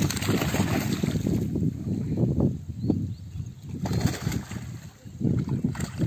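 Water splashing and sloshing in uneven bursts as fish thrash at the surface inside a drag net being hauled to the bank of a muddy pond.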